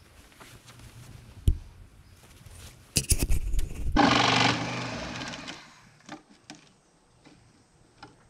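Carpentry work on wall siding: a sharp knock about a second and a half in, a burst of clatter about three seconds in, then a loud mechanical whir that dies away over about a second and a half, followed by a few light knocks.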